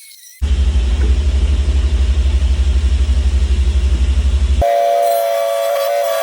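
Woodworking power tools cutting boards to size. A loud, fast, even low pulsing machine noise switches abruptly about four seconds in to a steady high-pitched motor whine.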